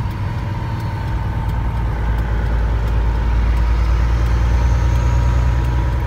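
Tri-axle dump truck's diesel engine heard from inside the cab, a heavy low rumble with a thin steady whine above it, swelling louder for a few seconds mid-way.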